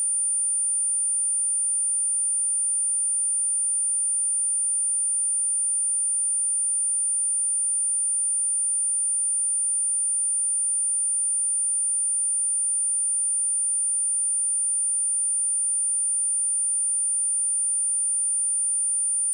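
Steady high-pitched 9244 Hz sine-wave test tone, one pure pitch held at constant level, as played to test a speaker or shake water and dust out of it.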